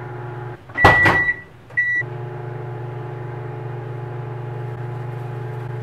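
Microwave oven running with a steady hum while heating a mug cake. A little over half a second in, the hum stops; a clunk and a high beep follow, then a second short beep, and the oven hums on again.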